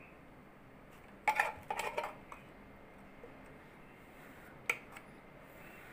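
Spatula clicking and knocking against the metal bowl of a wax heater while working melted hot wax. A quick run of clicks comes about a second in, and one sharp click comes later.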